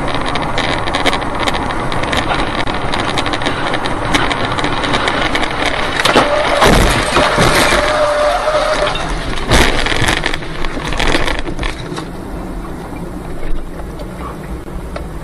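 Road and engine noise inside a car at highway speed. About six seconds in comes a burst of loud crashes and thuds as spray and debris hit the car, with a brief steady tone over it, then another sharp impact a few seconds later.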